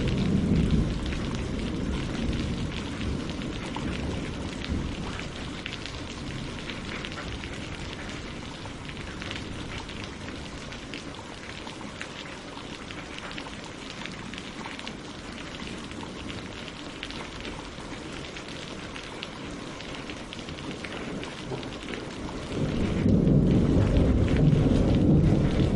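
Steady rain falling on leaves and lake water, a dense patter of drops. A low rumble of thunder dies away over the first few seconds, and another rolls in loudly about 23 seconds in.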